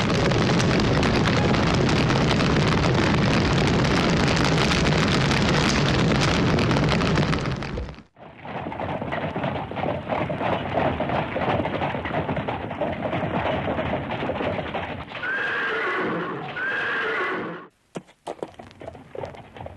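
A loud steady rushing noise that cuts off suddenly about eight seconds in, then horse hoofbeats, and a horse neighing twice near the end.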